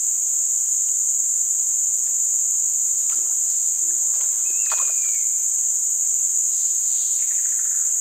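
Steady, high-pitched insect drone that does not vary, with a few faint clicks and a short faint whistled note about halfway through.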